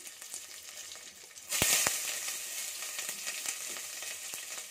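Hot oil sizzling around mustard seeds, dried red chillies and curry leaves frying for a tempering. About a second and a half in, chopped onions go into the pan with two knocks and the sizzle jumps louder and stays so.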